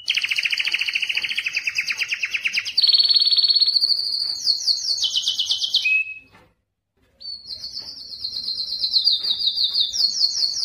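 Male canary singing fast rolling trills that jump to a new pitch every second or so. The song cuts out completely for about a second just after the middle, then resumes.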